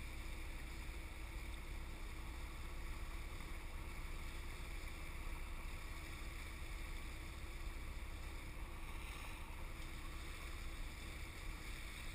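Steady low rumble and hiss of wind and water against a kayak-mounted camera, with a faint steady hum through it.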